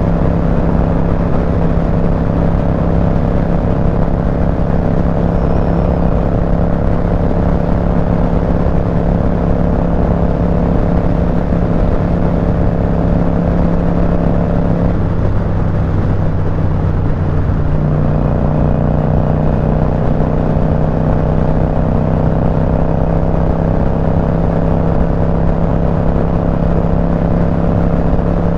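Motorcycle engine running steadily at highway cruising speed, with wind rushing over the microphone. About halfway through the engine note wavers and settles at a slightly different pitch, then climbs gradually toward the end.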